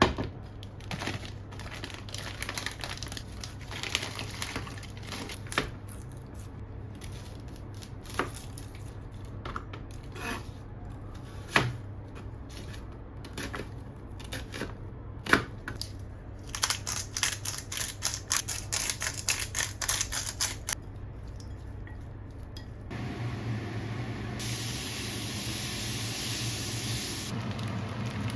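Kitchen cooking sounds: scattered clinks and knocks of utensils against a saucepan and cookware, and a quick rattling run in the middle. A steady hiss starts near the end and grows stronger for a few seconds.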